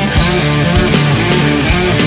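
Instrumental break of a rock song: guitar over a full band with a steady beat.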